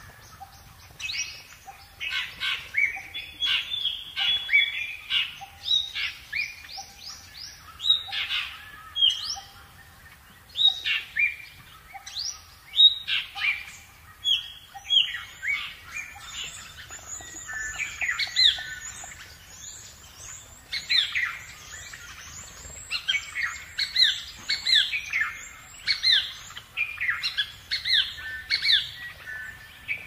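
A chorus of many small songbirds chirping, with quick, falling chirps overlapping one another throughout. A faint, lower repeated note sounds through the first half, and thin, high notes join from about halfway.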